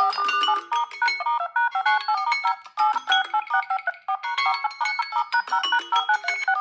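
Smartphone ringtone: a fast, repeating electronic melody of short, bright pitched notes, with brief dips around three and four seconds in.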